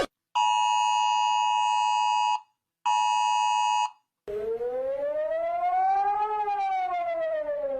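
Emergency alert tones: a steady attention tone sounds in two bursts, the first about two seconds long and the second about one. After a short gap, a siren wail rises and then falls over about three and a half seconds.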